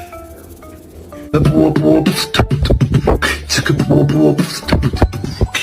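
Music: a few soft mallet-instrument notes, then about a second and a half in a loud beatboxing track starts with quick rhythmic vocal percussion.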